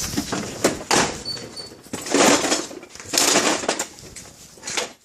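Rummaging through a drawer of cutlery: a run of clattering and rustling bursts, the loudest about two and three seconds in.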